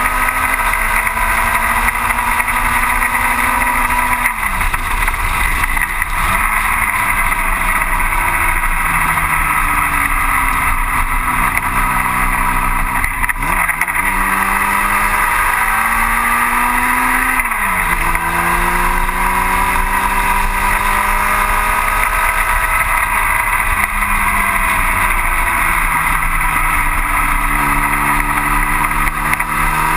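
1960 Cooper T-52 Formula Junior's engine at racing speed, heard from on board: the revs climb and fall, with sudden drops in pitch at gear changes several times, over a steady rushing noise.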